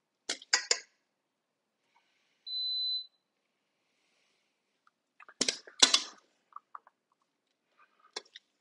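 Metal tongs clacking against a stainless steel mixing bowl and plates as salad is lifted out: a few quick clicks just after the start and a louder cluster of clacks about five and a half seconds in. A single short, steady electronic beep sounds about two and a half seconds in.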